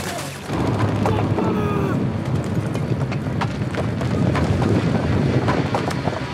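Battle sound mix with gunfire and impacts over a low rumble, starting about half a second in. An explosion near the end throws debris, and there are short sliding tones and shouted voices.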